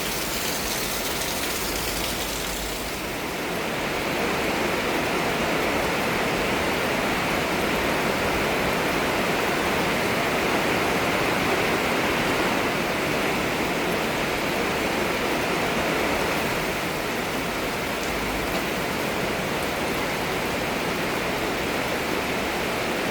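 Heavy tropical rain pouring down in a steady rush, with runoff water splashing and cascading. It grows a little louder about three seconds in.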